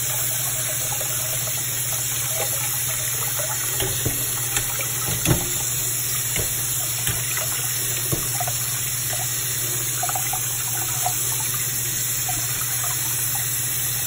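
A kitchen tap running cold water onto half-cooked elbow macaroni in a mesh strainer, splashing into a steel pot in the sink. The pasta is being rinsed cold so it won't stick together. A few light knocks sound between about four and eight seconds in, the loudest a little after five seconds.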